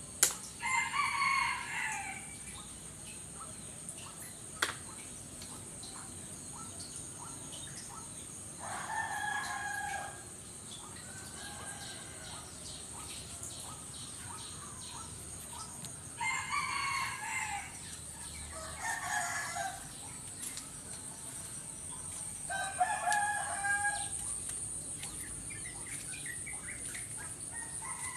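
Rooster crowing, about five crows of a second or so each, with a brief sharp click between the first two.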